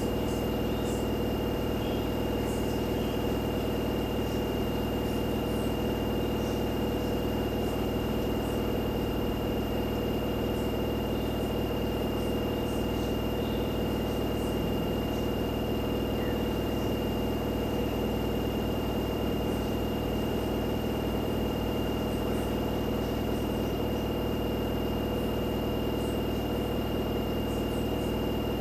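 LG direct-drive front-loading washing machine on its spin cycle: a steady hum with a constant motor whine and little vibration, as expected with its transit bolts removed.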